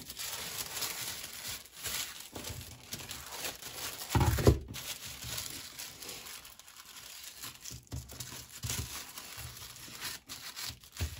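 Tissue paper rustling and crinkling as it is smoothed and folded by hand around an object being wrapped, with a soft thump about four seconds in.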